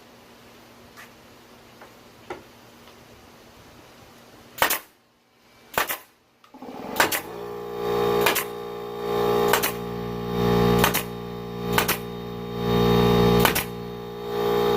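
Pneumatic denailer firing: sharp pops about every second and a quarter as ring shank nails are driven out of wooden fence pickets. From about halfway through, an electric air compressor runs steadily underneath.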